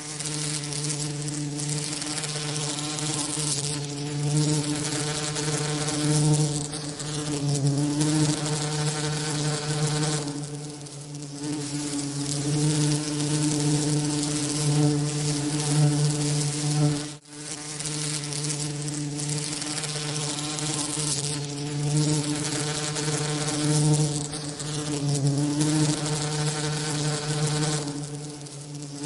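Buzzing of bee wings mixed with a hiss: a steady low buzz with a stack of overtones over an even rushing noise, used as a tinnitus masking sound. The buzz swells and fades in slow waves and drops out for a moment about 17 seconds in.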